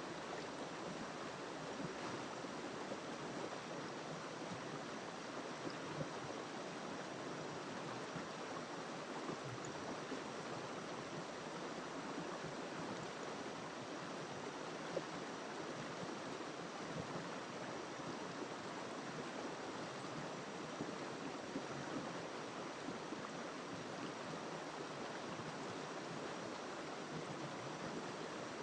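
River water flowing: a steady, even rush that does not let up.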